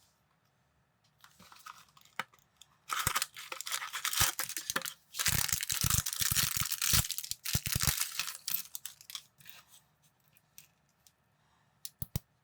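Plastic parts bag being torn open and crinkled, a loud rustling with many small clicks for several seconds in the middle. A few sharp plastic clicks near the end.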